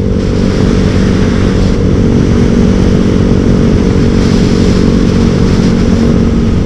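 Motorcycle fitted with an aftermarket TZM Project exhaust cruising at a steady speed, its exhaust note even with no big revs, under a steady rush of wind and road noise.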